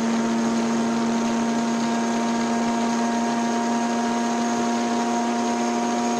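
Mazda RX-7 FD3S's twin-turbo rotary engine heard from inside the cabin, holding high revs at a steady pitch at speed, with a hiss of wind and road noise under it.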